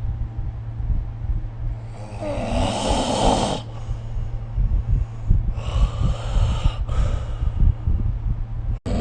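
A person snoring in sleep: a longer snoring breath about two seconds in and a shorter one around the middle, with low irregular fluttering between them over a steady low hum.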